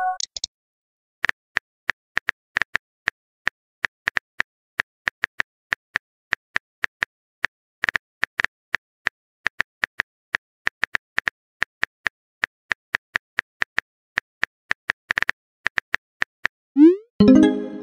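Keyboard click sounds of a texting app, several taps a second as a message is typed out. Near the end comes a rising pop and a short chime as the message is sent.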